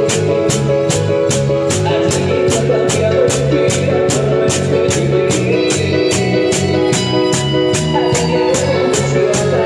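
Cuarteto music: a metal güira scraped in sharp, even strokes about three a second, over held electronic keyboard chords and a steady low drum beat.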